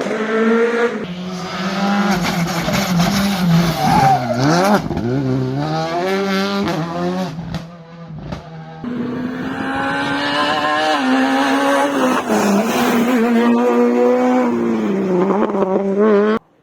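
Rally car engines at full throttle, the revs climbing and dropping again and again through gear changes. About eight seconds in the engine sound dips and there are a few sharp cracks, then full revs return; the sound cuts off abruptly near the end.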